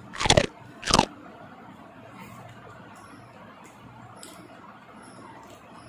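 Two short, loud knocks or rustles close to the microphone, about two-thirds of a second apart near the start, then steady quiet room tone.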